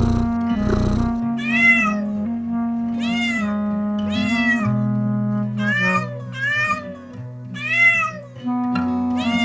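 Cat meows, about seven separate rising-then-falling calls spaced through, over background music with sustained low notes.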